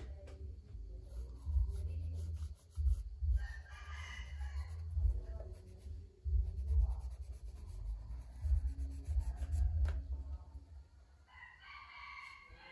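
Two drawn-out animal calls, one a few seconds in and one near the end, over a low rumble.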